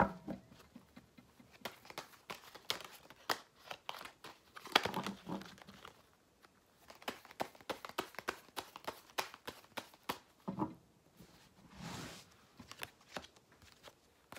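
Tarot cards being handled and turned over on a table: an uneven run of light clicks, taps and rustles with short pauses between them.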